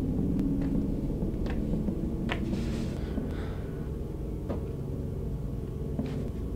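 Low, steady droning rumble made of several sustained deep tones, with about six faint sharp clicks scattered through it and a brief soft hiss around the middle: a dark ambient soundtrack drone.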